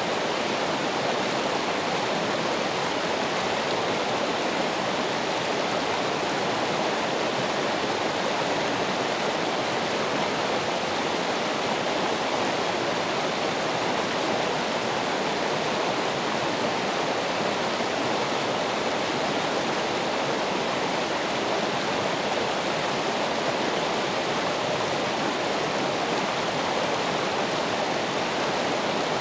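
Flowing water running steadily, an even rushing stream or small waterfall with no change.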